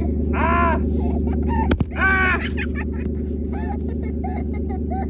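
Twin-turbo small-block Ford V8 idling steadily, with an even, rhythmic low pulse.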